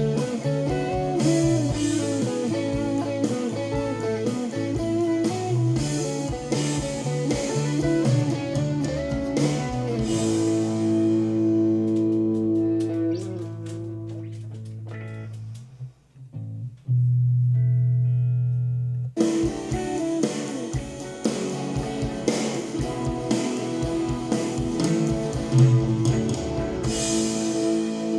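Guitar-led band music played back from a multitrack recording through a digital mixer. About ten seconds in the beat drops out to held chords. It almost stops around sixteen seconds, then a loud held low note sounds. The full band comes back in about three seconds later.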